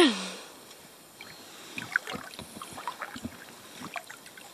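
Kayak on calm water: faint, irregular little splashes and drips with light knocks, as the paddle dips and touches the hull. A brief falling voice sounds at the very start.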